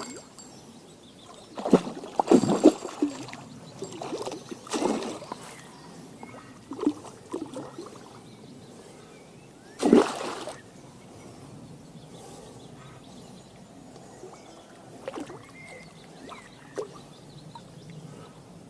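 Water splashing and sloshing in separate bursts, the loudest about ten seconds in, as a pike is landed.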